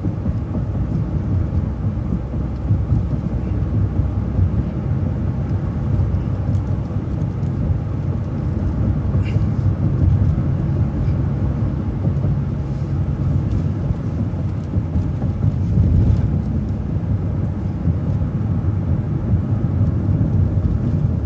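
City transit bus engine and road rumble heard from inside the moving bus: a steady low drone with a few faint rattles.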